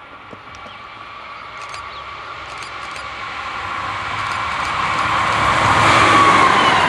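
A DB class 218 diesel-hydraulic locomotive approaches and passes close by. Its engine and wheels grow steadily louder, peaking about six seconds in, and the engine's tones drop in pitch as it goes by.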